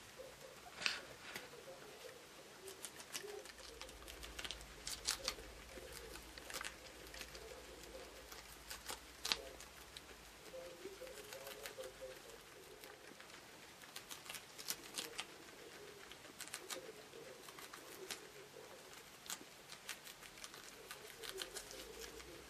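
Guinea pig eating lettuce: faint, irregular crisp clicks and crunches of its nibbling and chewing, some in quick little clusters.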